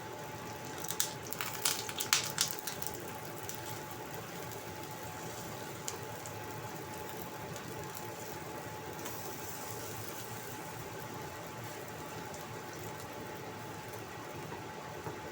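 Potato and carrot fritter batter frying in oil in a thin wok, a steady sizzle; the cook says the thin pan is scorching it black. About one to three seconds in comes a quick run of sharp clicks and knocks.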